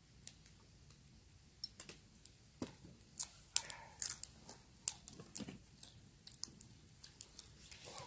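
Faint, irregular clicks and crunches of a person chewing grilled chicken innards.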